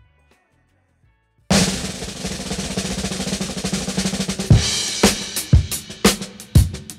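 Background music: a drum track comes in suddenly and loudly about a second and a half in with a crash and a roll, then settles into a steady beat of about two hits a second.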